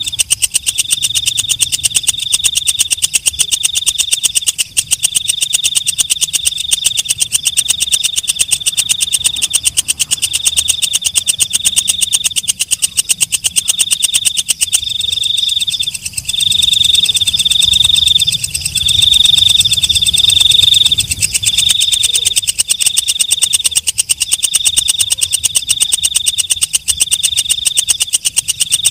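Green leaf-winged katydid (walang kecek) stridulating: a loud, high buzzing chirp repeated about once a second, each chirp a rapid train of ticks.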